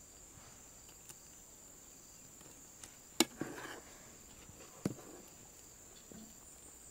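A steel ladle knocking lightly against the pan a few times as banana pieces in coconut milk are stirred and lifted. The sharpest knocks come about three and five seconds in. A steady high insect drone runs underneath.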